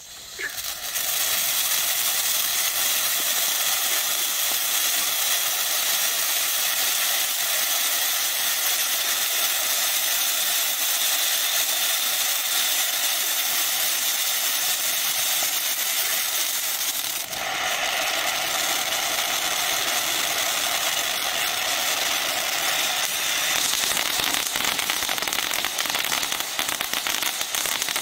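Magnus Latte (M5047A) ground-fountain firework spraying sparks with a steady, loud hiss that builds up in the first second after lighting. About two-thirds of the way through the spray sounds fuller, and near the end it turns uneven as white bursting effects set in.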